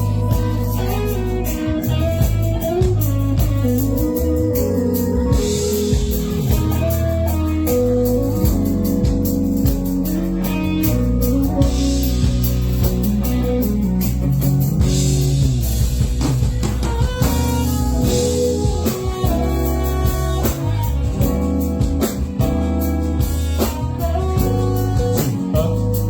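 Instrumental band music with guitar and drum kit, played steadily through a PA sound system during a sound check.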